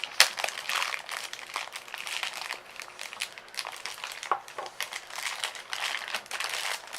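Plastic toy packaging crinkling and rustling in the hands as a Tsum Tsum figure is unwrapped, in irregular crackles with a sharp loud crackle just after the start.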